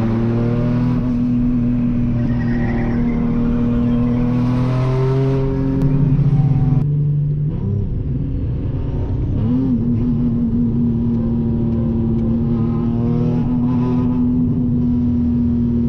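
Single-turbo Nissan 370Z's VQ37VHR V6 running steadily at cruising speed, heard from inside the cabin. About seven seconds in the engine note drops off sharply as the throttle closes for a gear change, then settles back into a steady drone.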